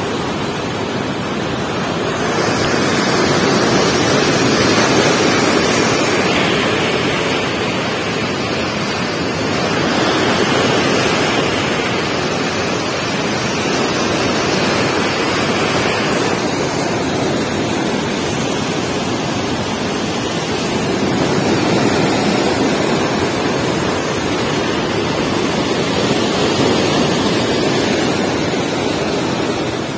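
Swollen, muddy floodwater rushing and churning through a river floodgate: a steady, loud rush of turbulent water that swells and eases slightly in level. The river is in flood, its current too swift for fishing.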